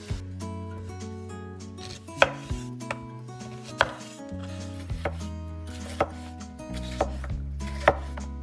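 A knife chopping vegetables on a cutting board: roughly nine sharp cuts, spaced unevenly about a second apart, over soft sustained tones.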